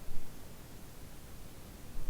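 Wind blowing as a steady hiss, with low rumbling gusts buffeting the microphone, the strongest just after the start.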